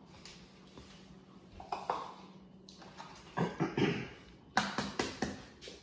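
Light knocks and clicks from handling eggs and bowls on a kitchen counter, ending in a few sharp taps as an egg's shell is cracked against the rim of a small bowl to separate the yolk.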